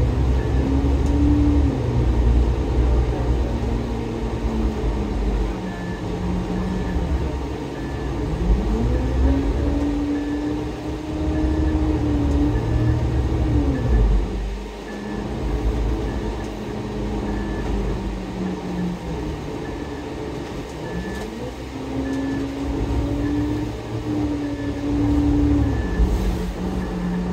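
A GO Transit bus's diesel engine and drivetrain heard from inside the cabin: a steady low rumble with a whine that rises and falls in pitch three times as the bus speeds up and slows down. A faint beep repeats about once a second throughout.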